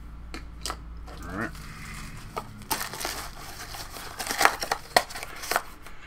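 Small cardboard Funko Mystery Minis blind box being opened and the bagged figure inside handled, giving a run of sharp crinkles and crackles of packaging that grows busier about halfway through.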